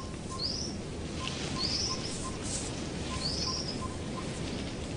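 Forest ambience: a bird gives three short, high, arched chirps, the last the loudest. Under them run a steady low hiss and faint, evenly spaced pips.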